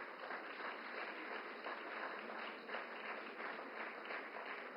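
Audience applauding, a quiet, steady patter of many hands clapping.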